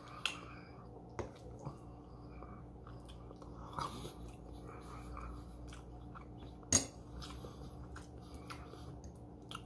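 A person chewing and biting food close to the microphone, with soft mouth clicks, over a faint steady low hum. One sharper click comes a little before the end.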